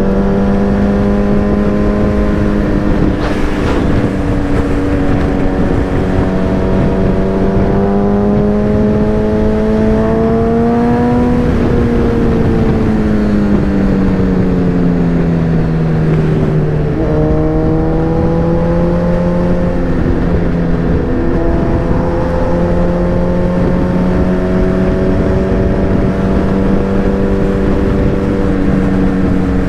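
Suzuki sport bike engine running at highway cruising speed, heard from the rider's seat over steady wind rush. Its note rises a little about a third of the way in, drops off over the next few seconds, then steps back up and holds steady.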